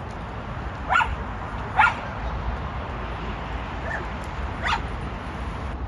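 A dog barking: four short, sharp barks, the second the loudest, over a steady low rumble.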